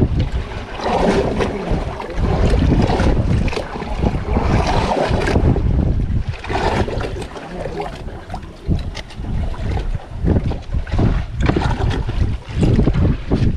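Wind buffeting the microphone on a small boat at sea, a loud uneven rumble that rises and falls in gusts, with water sloshing around the hull.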